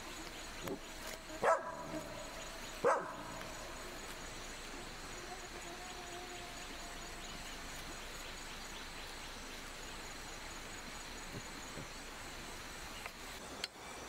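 A dog barks twice, about a second and a half apart, over a steady background hiss.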